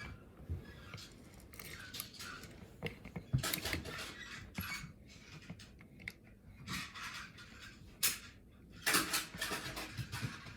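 Irregular rustling, scraping and light tapping from small objects being handled at a table, such as paper and a pencil, with a few sharp clicks.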